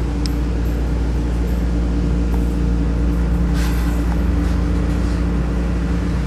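Cabin noise inside an Okayama Electric Tramway tram: a steady low rumble with an even hum underneath.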